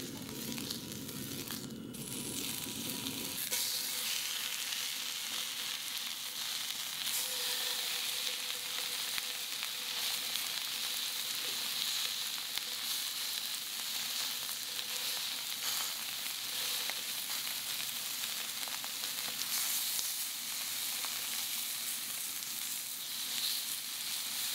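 Beef fillet and short-rib steaks searing in a hot cast-iron skillet: a steady sizzle of frying fat. It starts as a piece of beef fat is rubbed around the pan and grows louder and brighter about four seconds in.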